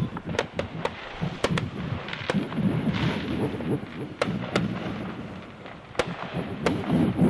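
Irregular sharp pops and cracks, some close together in pairs, over a continuous crackling rumble.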